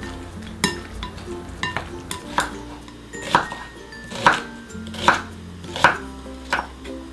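Kitchen knife slicing a halved onion against a wooden cutting board, a sharp knock a little less than once a second, the strongest strokes in the second half, over light background music.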